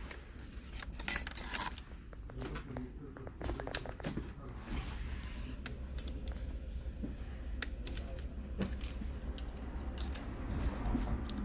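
Small metal parts and tools being handled on a workbench: irregular light clicks and metallic clinks during laptop reassembly, over a steady low hum.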